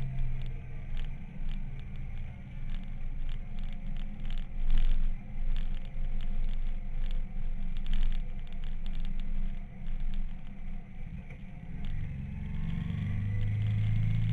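Onboard sound of a motorcycle riding down a mountain road: low wind and road rumble with frequent crackling buffets on the microphone, the engine barely heard. About twelve seconds in, a steady low engine hum comes up and stays.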